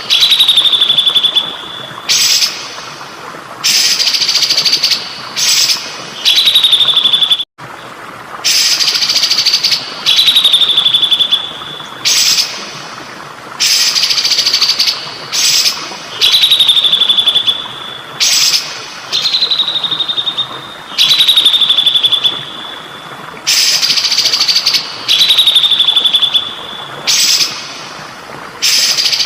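Songbird song repeated over and over, each phrase a short burst that slides down from a high whistle into a steady trill, coming every two to three seconds, over a constant trickle of water. The sound cuts out for an instant about seven and a half seconds in.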